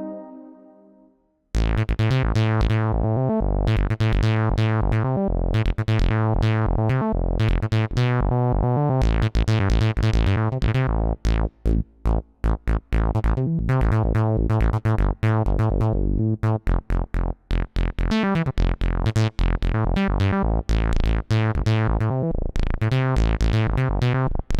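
Yamaha YC88 stage keyboard playing a synth patch: a fast, rhythmic pattern of sharply struck chords over a deep bass. It starts suddenly about a second and a half in, after the previous sound has faded to silence.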